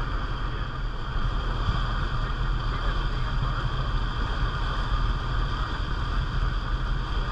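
Boat engine running steadily as the dive boat travels at speed, with water rushing and churning past the hull.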